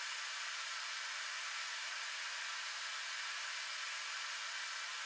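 Propane forge burning with a steady, even hiss and no low rumble, while a blade heats inside it.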